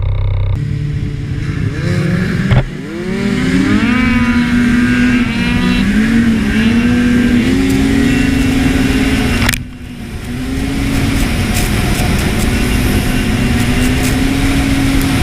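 Snowmobile engine running under way, its pitch rising and falling as the throttle is worked. The sound dips abruptly twice, briefly about two and a half seconds in and again near ten seconds.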